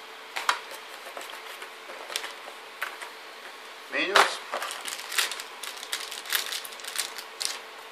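Paper and cardboard handling: a few light taps and rustles as motherboard manuals are laid aside. A short rising squeak about four seconds in is followed by a quick run of light metallic clicks and rattles as the thin stamped-metal I/O shield is lifted out of the cardboard box.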